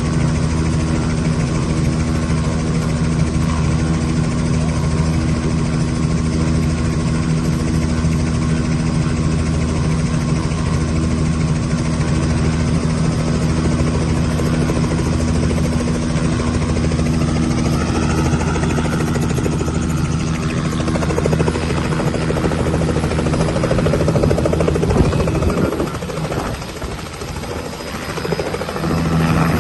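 Helicopter running up close, its turbine and rotor giving a loud steady low hum with a pulsing beat underneath. Near the end the sound drops for a couple of seconds and then comes back up.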